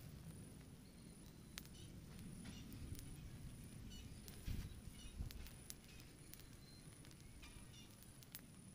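Faint outdoor ambience: a low rumble, small birds chirping now and then, and scattered sharp clicks over a thin steady high tone.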